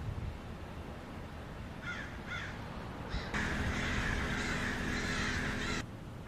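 Wild parrots calling harshly: two short squawks about two seconds in and another a second later, then a loud, continuous screech lasting about two and a half seconds that cuts off suddenly.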